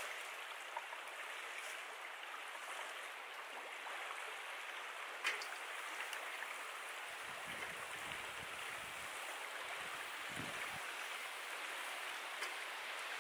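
River water running steadily, with a single sharp click about five seconds in.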